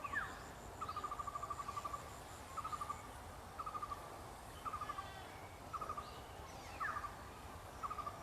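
Animal calls: a short, rapid, pulsed trill repeated about once a second, with a couple of quick falling chirps among them.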